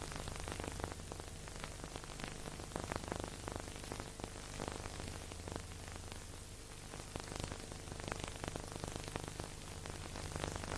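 Steady hiss with dense crackling clicks over a low, steady hum: background noise of an old recording transfer, with no music or voices.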